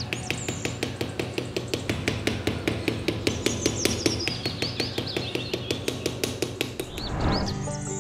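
Rapid, very even clicking or tapping, about six strokes a second, with birds chirping over it. A rising whoosh comes near the end.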